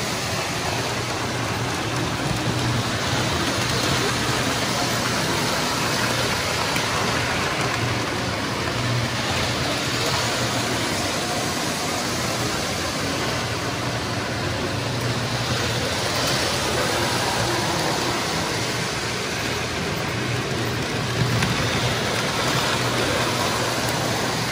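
Post-war O-gauge toy trains running on a three-rail layout: a steady rumble and rattle of wheels and motors on the track, with a low steady hum underneath.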